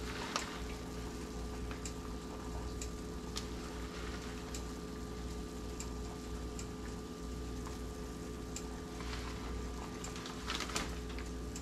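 Quiet kitchen room tone: a steady low electrical hum with faint, irregular light ticks about once a second.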